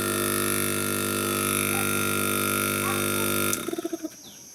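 Steady electric buzzing hum of a running machine's motor, which cuts off suddenly about three and a half seconds in.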